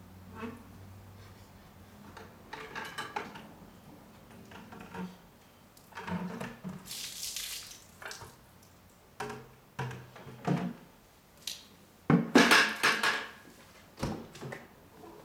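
Hand car wash: a plastic bucket of soapy wash water being handled, knocked and tipped, with water sloshing and splashing out. A short hissing pour comes about halfway through, and the loudest run of splashes and knocks comes near the end.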